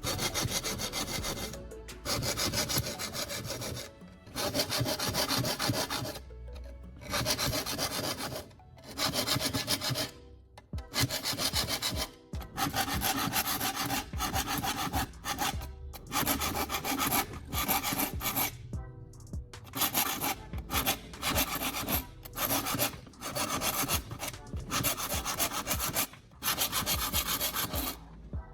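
Hand file drawn repeatedly across the teeth of a steel folding-saw blade to sharpen them: rasping strokes about a second long, one after another, with short breaks between.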